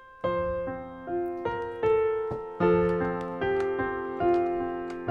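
Piano playing a slow Christmas carol medley, single notes and chords struck about every half second and left to ring and fade.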